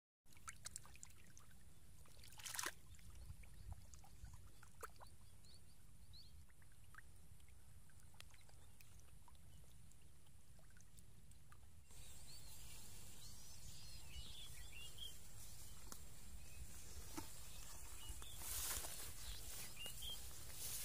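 Faint splashing of many small fish wriggling and thrashing in a shallow muddy puddle, with scattered small splashes and one sharper splash about two and a half seconds in. Near the end, louder rustling as someone walks through tall grass.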